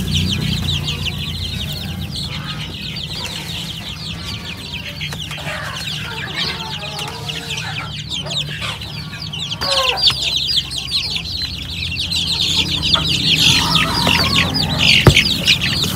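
A flock of native chicken chicks peeping without pause, a dense chorus of short high chirps that grows louder in the second half, with a few lower calls mixed in. A steady low hum sits underneath, and a single sharp knock comes about a second before the end.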